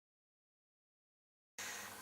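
Near silence: dead digital silence, then about one and a half seconds in, a faint room tone with hiss cuts in abruptly.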